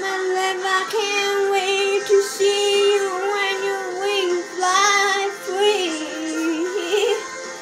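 A woman singing a slow melody, her voice wavering with vibrato on long held notes.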